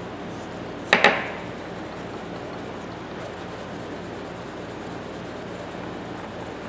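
Steel tap handle set down on the work surface about a second in, two quick knocks with a short ring, followed by steady rubbing as steel wool works over the handle's jaw.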